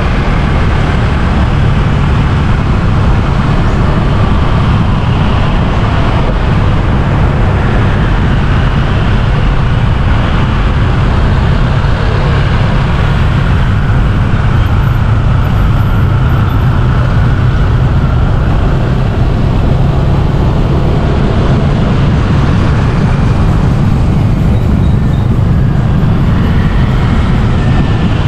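Road traffic noise heard from a moving vehicle: a steady, loud low rumble under a busy haze of engine and road noise.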